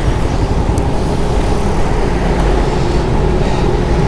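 Motorcycle engine running steadily, with a low rumble and road noise.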